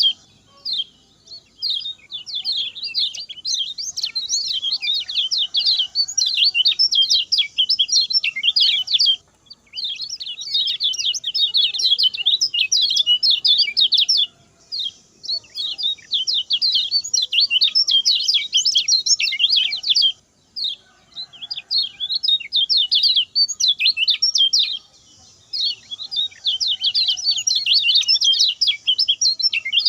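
Yellow-bellied warbler (kecial kuning) singing a fast, high twittering song in bursts of several seconds, with short pauses between them.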